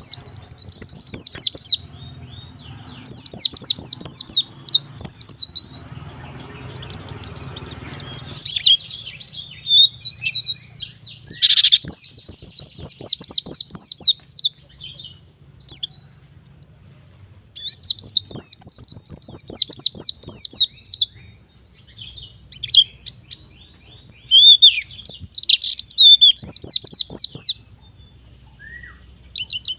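White-eye (pleci) singing in full song: fast, high-pitched chattering phrases a few seconds long, broken by short pauses, with a faint low hum underneath.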